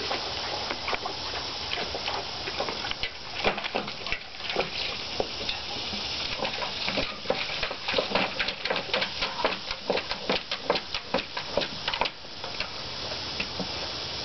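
Newfoundland dog lapping and splashing water in a stainless steel bowl: a quick, uneven run of wet laps and splashes, most regular in the middle stretch, with water slopping out of the bowl.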